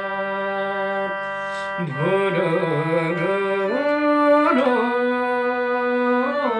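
Nepali folk song performed live: a male voice holds long, ornamented notes that step upward, over instrumental accompaniment.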